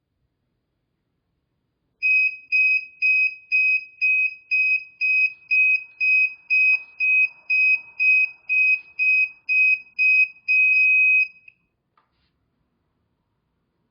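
Hoverboard's alarm buzzer beeping. About eighteen short, high beeps come at roughly two a second, and the last beep is held a little longer before it cuts off.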